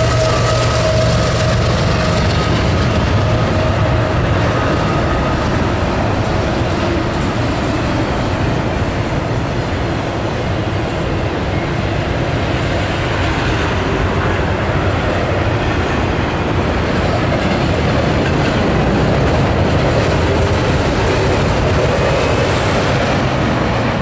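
CSX double-stack container freight train rolling past, a steady loud rumble and rattle of wheels on rail. Over the first five seconds a high tone from the passing locomotives falls slightly in pitch and fades out.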